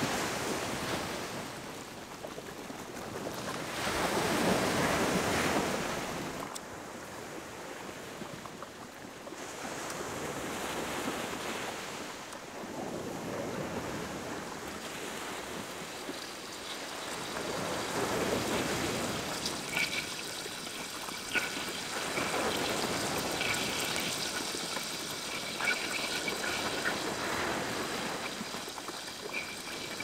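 Small waves washing up a sandy beach, the surf swelling and fading every few seconds. Faint short high chirps and a few light clicks come in over the second half.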